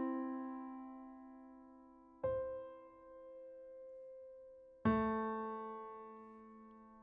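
Slow, quiet piano music. Chords are struck one at a time and left to ring and fade away: one about two seconds in and another near five seconds.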